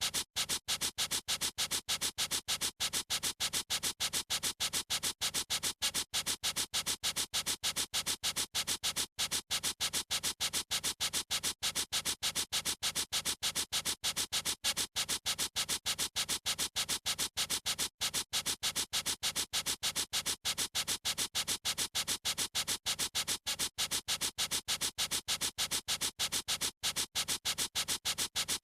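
A writing tip scribbling on paper in rapid back-and-forth strokes, several scratchy strokes a second in an even, unbroken rhythm.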